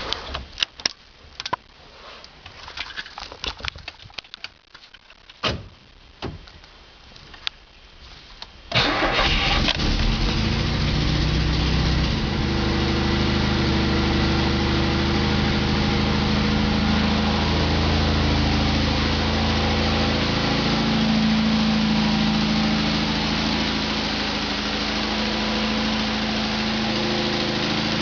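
Lada 4x4 engine's first start after repair: a few scattered clicks and knocks, then the engine catches about nine seconds in and settles into a steady idle. Its revs rise a little and fall back near the end.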